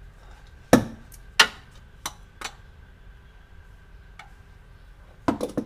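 A few sharp clicks and knocks, the loudest about a second in, then a quick cluster of them near the end.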